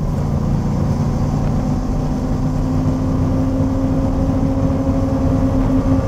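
Suburban's 8.1-litre gasoline V8 at wide-open throttle, accelerating hard, heard from inside the cabin: a steady engine drone that climbs slowly in pitch as the revs rise.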